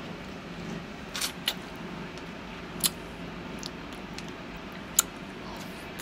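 Mouth sounds of eating a chocolate-and-nut-coated ice cream bar: a few short, sharp crackles and smacks as the hard coating is bitten, about a second in, near three seconds and loudest at five seconds. A steady low hum runs underneath.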